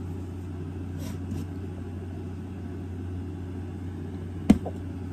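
Steady low hum with a faint rumble underneath, and one sharp click near the end.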